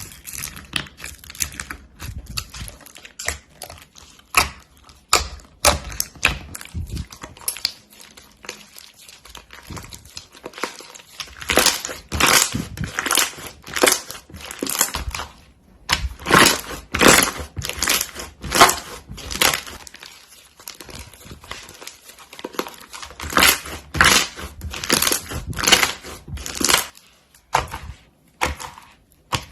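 Slime being squeezed and pressed by hand, giving quick runs of crackly, crinkling pops, with brief pauses about halfway and near the end.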